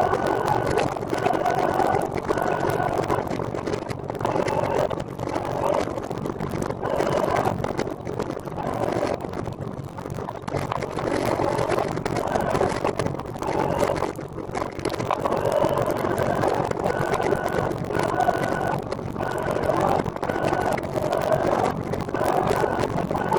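Steady rolling noise of a recumbent trike being ridden on the road: a rushing hum of tyres, drivetrain and air. A short high note repeats a little faster than once a second at the start and again later on.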